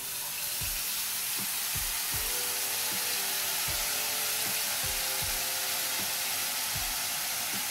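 Pineapple pulp frying in hot ghee, a steady sizzle.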